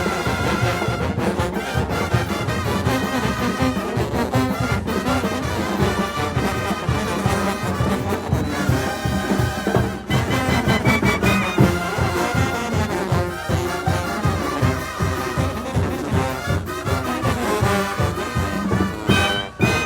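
Mexican brass bands playing together live, with trombones and trumpets over a steady, pulsing low beat.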